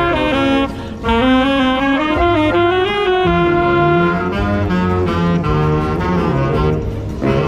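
Wind and brass band playing, with an alto saxophone close by carrying a moving melody over held low bass notes. The band breaks briefly about a second in and again near the end.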